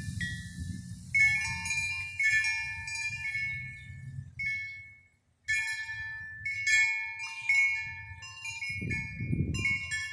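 Large tubular wind chime ringing as it sways, its tubes striking in clusters of overlapping, slowly fading tones. A low rumble runs underneath and swells near the end, and the sound cuts out briefly about five seconds in.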